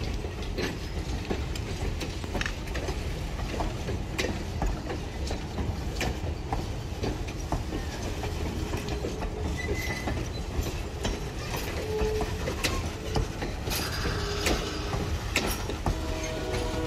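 Reading and Northern passenger coaches rolling slowly past on curved track: a steady rumble with irregular clicks and clunks from the wheels and running gear. There are brief wheel squeals about halfway through and again near the end.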